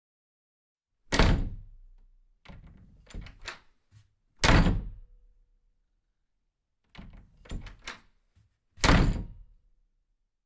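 Three heavy thuds a few seconds apart, each fading out over about a second, with clusters of lighter clattering knocks between them.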